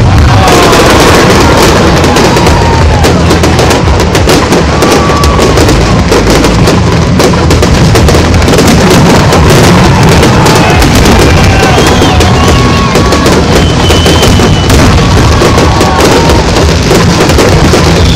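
Aerial fireworks display going off without a break: many shell bursts and crackling, with a few whistling glides. It is loud enough to overload the phone's microphone.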